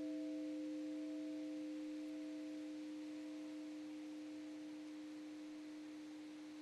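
A 29-inch cast bronze church bell, cast in 1899 by the Clinton Meneely foundry of Troy, NY, ringing out and slowly fading. Its strike note is C4, with a weaker octave above it and a higher partial that pulses about once a second.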